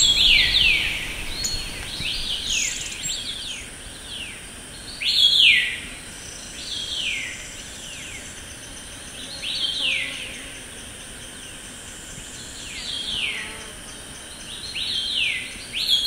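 Forest songbird singing short phrases of quick falling notes, a phrase every two to three seconds, over a thin, steady, high hiss.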